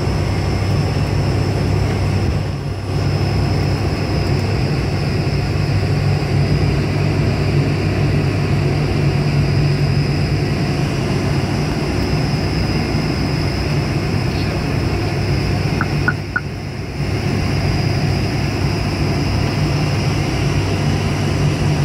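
Steady drone of an ATR 72-600's twin turboprop engines and propellers, heard inside the cockpit on final approach: a strong low hum with a thin high whine over it. It turns briefly quieter twice, once about three seconds in and again about three-quarters of the way through.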